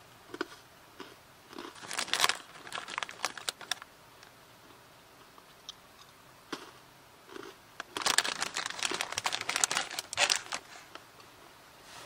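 Plastic snack pouch crinkling as it is handled, in two bursts of crackling: one about two seconds in and a longer one from about eight to ten seconds, with a few small clicks between them.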